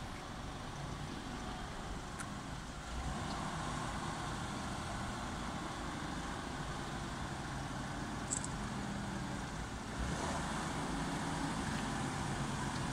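Heavy haulage truck's diesel engine running as it slowly approaches hauling an oversized load, steady and low, growing louder about three seconds in and again about ten seconds in.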